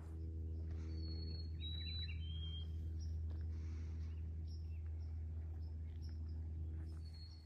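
Birds chirping, with a few short high whistled notes, some falling, about one to three seconds in, over a steady low hum that runs throughout and is the loudest sound.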